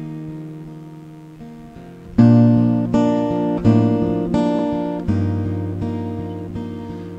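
Background music: acoustic guitar playing strummed chords. A held chord fades out first, then new strums begin about two seconds in and repeat at an even pace.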